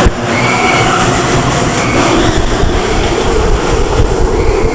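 Premier Rides linear-induction-motor launched roller coaster train starting its launch with a sudden jolt. It then runs fast with a loud, steady rumble of wheels on the track and a steady hum underneath.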